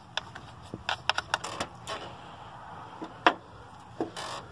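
Scattered light metallic clicks and clinks as the thermostat housing bolts and a socket on an extension are handled, with one louder click about three seconds in and a brief rustle near the end.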